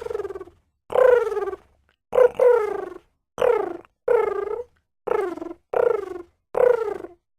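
Pigeon cooing: a run of short coos, roughly one a second, each one falling in pitch.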